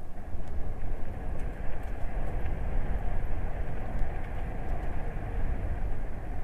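Steady rumble of wind and road noise from a moving e-bike, strongest in the low end, with no engine note.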